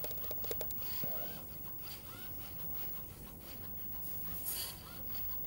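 Small DC gear motors of a four-wheel Arduino robot car running as it drives over carpet, with scraping and rubbing noise and a short hiss about four and a half seconds in.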